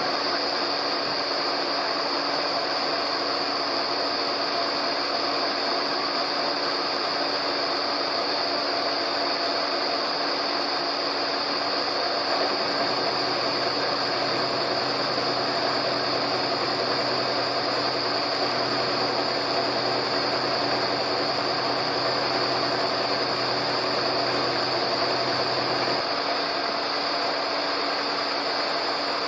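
Beaver VBRP turret milling machine running steadily, a chamfer cutter taking a light cut along the edge of thin ground flat steel to form a knife edge, with a high-pitched whine on top. A lower hum comes in about halfway through and stops a few seconds before the end.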